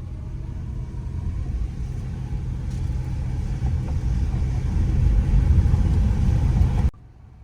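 Loud low rumble that grows steadily louder, then cuts off abruptly near the end.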